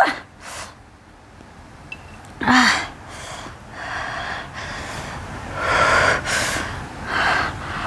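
A woman gasping and breathing hard through an open mouth, a string of short hissing breaths in and out, one with a brief voiced 'ah' about two and a half seconds in. The breathing comes from the chili burn of ghost-pepper instant noodles.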